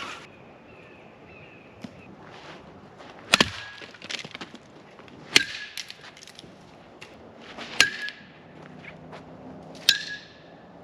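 An alarm clock being smashed: four hard blows about two seconds apart, each followed by a brief ringing tone.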